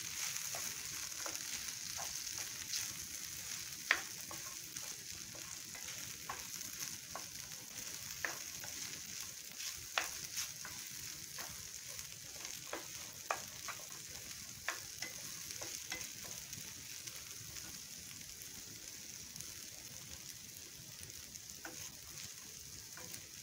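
Okra and peanuts frying in oil in a nonstick pan with a steady soft sizzle, stirred with a wooden spatula that knocks and scrapes against the pan in scattered sharp clicks, mixing in the freshly added spice powders. The sizzle grows slightly quieter toward the end.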